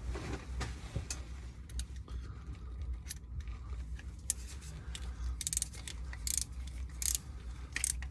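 Hand ratchet or torque wrench clicking in short metallic bursts, mostly in the second half, as the new transmission pressure sensor is tightened down from finger tight. A steady low hum runs underneath.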